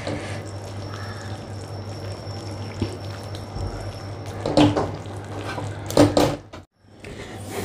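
A metal spatula stirring and scraping rice flour into simmering tomato water in a metal pan, with wet slopping sounds. There are two louder clanks of the spatula against the pan, about four and a half and six seconds in.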